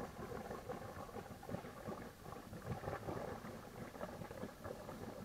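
Boat engine idling on the water: a faint, uneven low burble.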